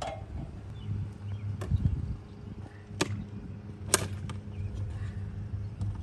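A handful of short sharp clicks and knocks, about five, spaced irregularly, as a plastic pest guard dryer vent cage is handled and fastened with a cordless drill against vinyl siding, over a steady low hum.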